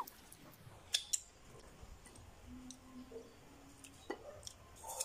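Small eating sounds at a table: scattered sharp clicks, the loudest two close together about a second in, and lighter ticks near the end.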